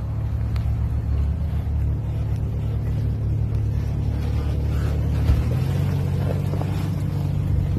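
Jeep Cherokee XJ engine running steadily with a low, pulsing rumble, its note shifting slightly about five and a half seconds in.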